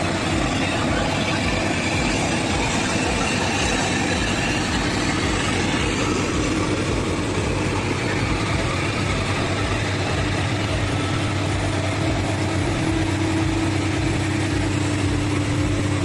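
Heavy diesel engine of a logging truck running steadily, with a pulsing low rumble.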